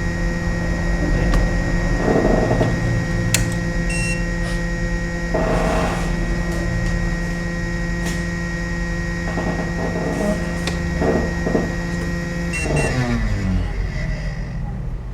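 A steady machine hum made of several constant tones, with short rushing noises every few seconds and a few clicks. About thirteen seconds in, the hum winds down in pitch, like a motor slowing.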